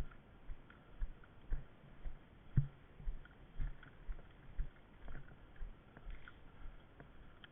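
Footsteps at a steady walking pace, about two dull thuds a second, picked up on a head-mounted camera, with faint clicks and rattles of gear between steps.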